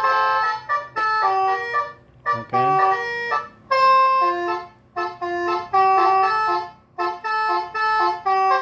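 Electronic telolet horn module playing a 'basuri' koplo remix melody through a toa horn loudspeaker: loud, buzzy, reed-like notes in short melodic phrases with brief breaks between them.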